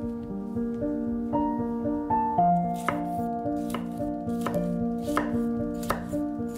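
Knife chopping food on a cutting board, a steady run of sharp strokes about one every 0.7 s, strongest in the second half, over soft background piano music.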